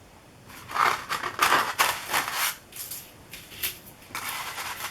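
Plastic stencil sheets and their packaging rustling and crinkling as they are handled, in irregular bursts with brief pauses.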